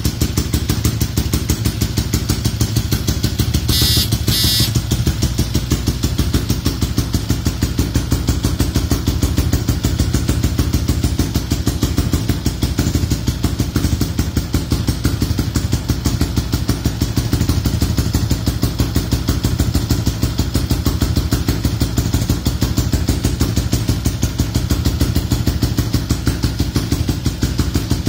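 Motorcycle engine idling steadily, its exhaust pulsing evenly and at a constant speed. A brief high-pitched double chirp sounds about four seconds in.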